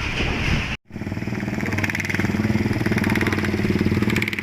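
Motorcycle engine running steadily with an even, rapid firing pulse, after a short break about a second in; before the break, a moment of mixed street noise.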